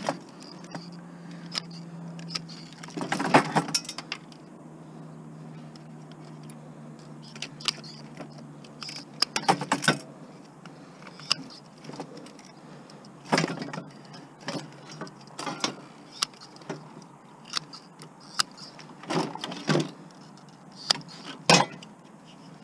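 Hand tools and metal and plastic parts clinking, rattling and knocking as the projection tube and lens assemblies of a rear-projection TV are pried and pulled apart: irregular sharp knocks and clicks, with a steady low hum underneath for the first nine seconds or so.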